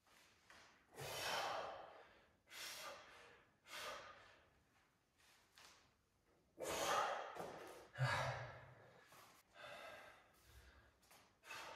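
A man breathing hard through weighted pull-ups, with a short, forceful breath about once a second. The loudest breaths come a little past the middle.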